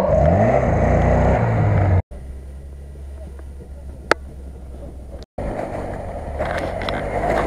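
Off-road 4x4 engines in three short cuts: first a Daihatsu Feroza's engine revving up, then a much quieter low steady rumble with a single sharp click, then a Lada Niva's engine pulling through snow, rising in level toward the end.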